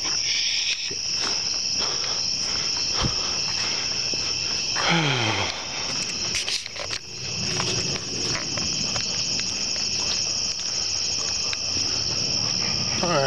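A steady chorus of crickets and other insects, a high, fast-pulsing chirring. Twice, about five seconds in and again near the end, a brief sound falls steeply in pitch.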